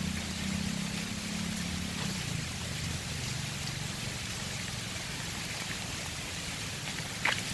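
Steady hiss of rain and running water. Under it, a low engine hum fades away over the first two seconds, and a faint click comes near the end.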